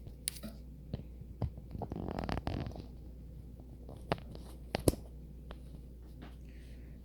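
Small objects being handled and set down: scattered clicks and taps, a brief scraping rustle about two seconds in, and two sharp knocks near the five-second mark.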